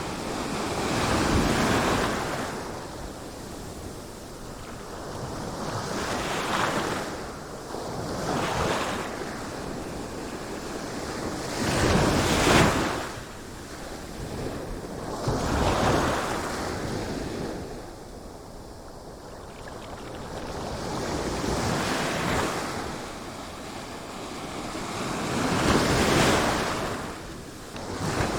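Sea waves breaking and washing in, a hiss of surf that swells and fades in uneven surges every few seconds.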